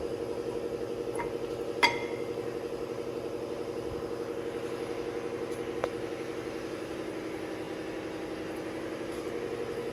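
New rear brake pads being fitted into the caliper bracket, steel backing plates clinking against the metal abutment clips: a sharp ringing clink about two seconds in, a fainter one just before it, and a short click near six seconds. Under it runs a steady mechanical hum.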